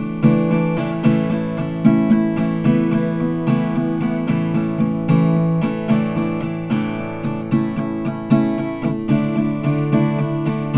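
Background music: a strummed acoustic guitar playing chords with a steady beat.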